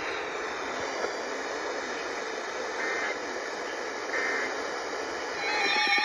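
Steady hiss of static from an Eton FRX-5 emergency radio's speaker after an emergency alert broadcast. Steady alert tones start near the end.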